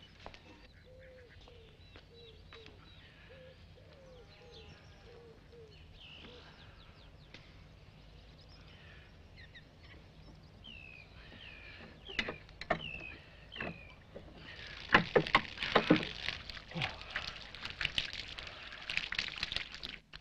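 Birds chirping in a farmyard, then from about fifteen seconds in, water splashing from a hand water pump with a few sharp knocks, as hands and face are washed under it.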